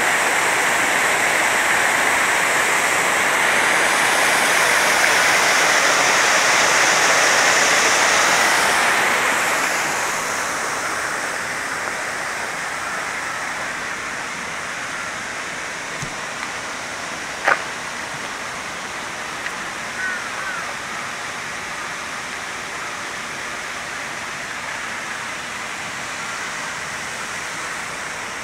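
Steady rushing water, louder for the first nine seconds or so and then easing down to a softer, even rush. One sharp click sounds about seventeen seconds in.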